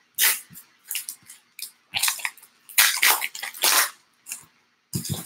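Foil baseball-card pack wrappers rustling and crinkling as a pack is picked up and ripped open, in a run of short crackly bursts, loudest about halfway through.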